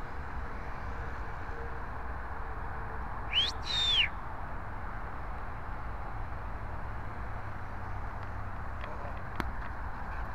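A short two-part whistle near the camera, sliding up and then back down, about three seconds in, of the kind used to call dogs. Under it runs a steady low rumble.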